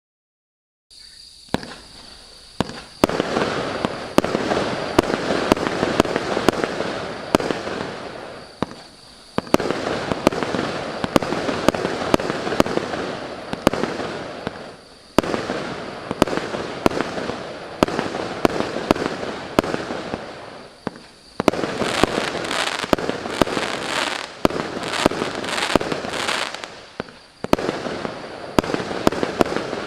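A 49-shot 0.8-inch firework cake firing. A quieter hiss for about two seconds is followed by a rapid run of sharp shots and bursts over continuous crackling, with a few brief lulls. The crackling grows brighter for several seconds past the middle, from the crackling chrysanthemum effects.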